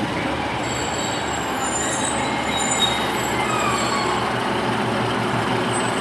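Train moving on the station tracks: a steady rumble with thin, high wheel squeal coming and going over the first few seconds.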